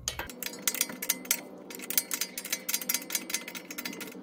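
A 19 mm ratcheting wrench clicking rapidly in quick runs as it is swung back and forth, backing off a steel ball joint nut.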